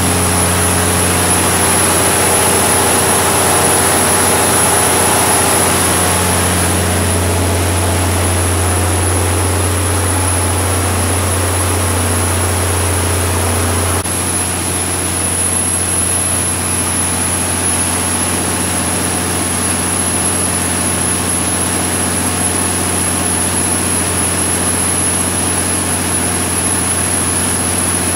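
Cummins QST30 V12 diesel engine of a 750 kW generator set running steadily at constant governed speed, a deep even hum with a thin high whine over it. The level drops slightly about halfway through.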